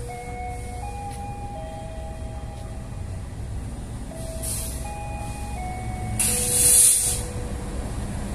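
Diesel-electric locomotive approaching at low speed, its engine a steady low rumble, with a loud hiss about six seconds in. A soft melody of held notes plays over it.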